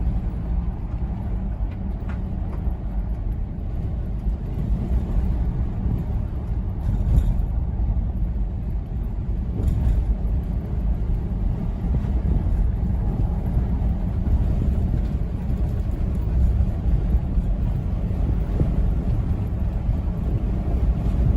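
Vehicle driving, a steady low rumble of engine and road noise.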